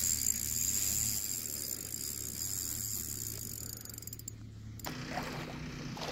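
Drag of a Daiwa spinning reel buzzing steadily as a hooked carp pulls line off the spool. It cuts off suddenly about five seconds in, giving way to outdoor wind and water noise.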